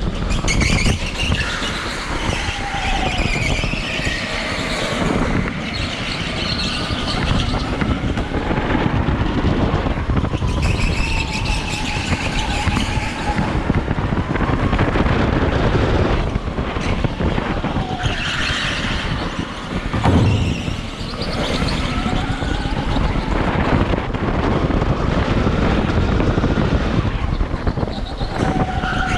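Electric go-kart heard from the driver's seat at speed: a whine that rises and falls as it accelerates and brakes, tyres squealing through the corners, and a steady rumble over the bumpy concrete, with one thump about twenty seconds in.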